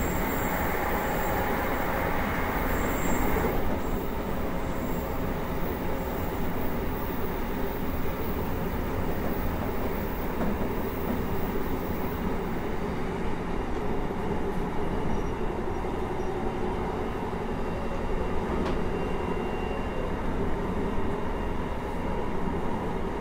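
JR Hokkaido 733 series electric multiple unit running at speed, heard from inside the car: a steady rumble of wheels on rail. The louder hissing upper part of the noise drops off about three and a half seconds in.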